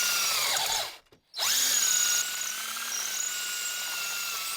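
Electric drill running with a steady whine as it drills into the metal vise key. It winds down and stops about a second in, then starts again half a second later and keeps running, easing slightly in level shortly after.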